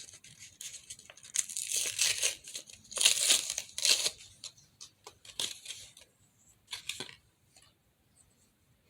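Fidget spinner packaging being torn and crinkled open by hand, without scissors, in irregular rustling bursts that are loudest about three to four seconds in and die away after about seven seconds.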